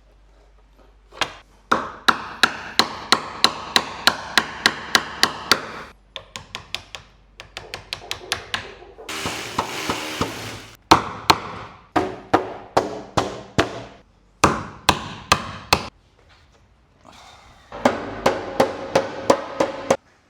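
A wood chisel being struck hard and fast, about four blows a second in bursts with short pauses, chopping the waste out of finger-joint recesses by hand. A short scraping rasp comes about half way through.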